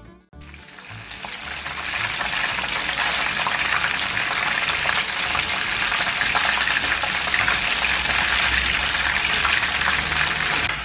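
Skewered breaded chicken deep-frying in hot oil: a steady crackle and sizzle of bubbling oil, fading in over the first couple of seconds.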